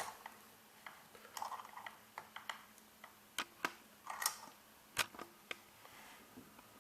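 Irregular small, sharp clicks and taps with a few brief rustles: lock picks and a euro cylinder lock being handled.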